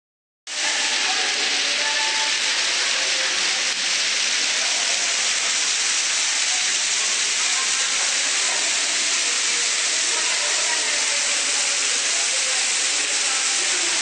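The Saltaninsky underground waterfall: a thin stream of water falling through an opening in the cave roof, splashing down a rock wall into a pool, heard as a steady, even hiss of falling water. It cuts in abruptly about half a second in.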